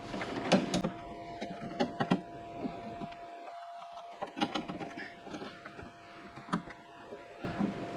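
Light, scattered clicks and knocks of the central locking mechanism and its linkage being handled and fitted inside a Toyota Land Cruiser 80 Series door, over a faint steady hum.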